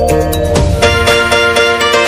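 Instrumental background music. About half a second in, a low sustained bass drops away and a run of quick, evenly spaced notes carries on.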